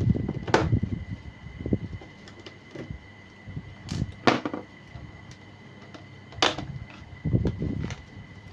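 Sharp clicks and light knocks of a screwdriver and small screws against a laptop's plastic bottom case, with rustling handling noise at the start and near the end.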